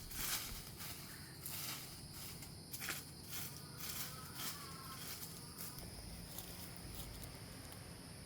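A run of short scraping, rustling strokes, about one or two a second, which thin out after about six seconds.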